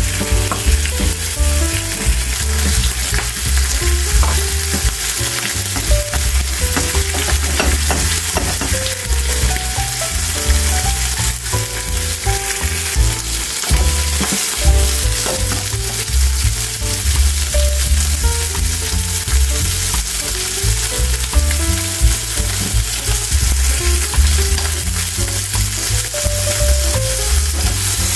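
Shrimp frying in hot oil in a non-stick frying pan: a steady sizzle with fine crackling pops.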